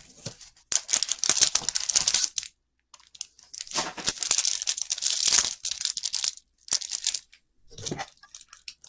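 Plastic wrapping on a box of hockey cards being torn open and crinkled, in two long rips of crackling with shorter rustles near the end.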